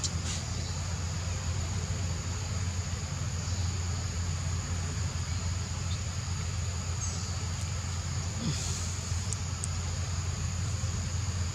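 Forest ambience: a steady high drone of insects over a steady low rumble, with a few faint clicks near the end.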